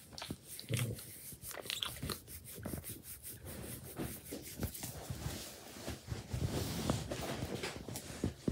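A dog licking right up against the microphone: a quick, irregular run of wet smacking licks.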